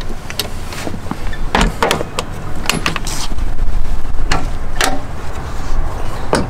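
Fire truck compartment doors and their metal latches being worked: a series of sharp clicks and knocks as one door is pushed shut and another is unlatched and lifted open. A low rumble runs underneath.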